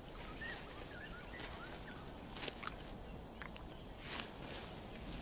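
Faint outdoor ambience: a few small bird chirps in the first second or so, then several short, sharp rustles and crunches of a Komodo dragon moving over dry grass.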